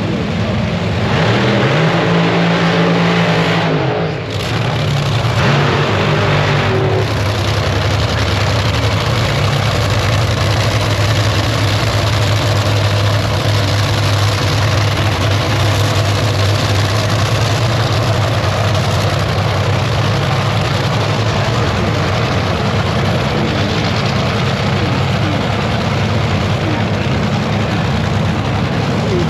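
A loud race-car engine runs steadily for the whole stretch. The pitch rises briefly in the first few seconds and the level dips for a moment around four seconds in.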